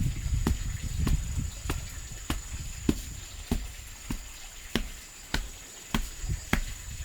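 A hand tool striking wood in a steady rhythm, about one sharp knock every 0.6 seconds, as in chopping or hammering during timber work. A steady high-pitched insect buzz runs underneath.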